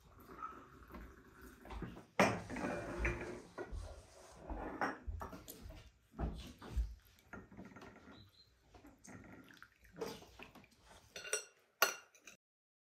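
Tableware clinking at a meal: tea glasses and saucers set down and forks knocking and scraping on plates as cake is eaten, in irregular clinks, with the sound cutting off abruptly near the end.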